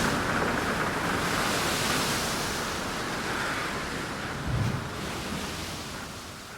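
Strong wind buffeting the microphone over the wash of a choppy sea, with a low gust thump about two-thirds of the way through. The sound fades away toward the end.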